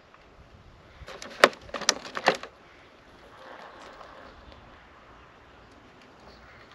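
RC scale crawler shifting on a rock slab, its tyres and chassis knocking against the stone: a quick cluster of sharp clicks and knocks about a second in, then only a faint hiss.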